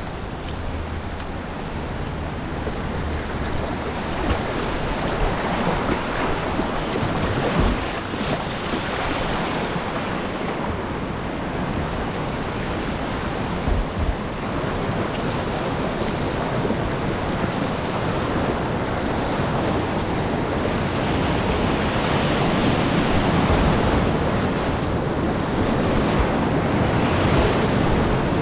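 Creek whitewater rushing steadily around a kayak running rapids, with wind buffeting the camera microphone, growing louder toward the end. A couple of sharp knocks stand out, about a quarter of the way in and about halfway.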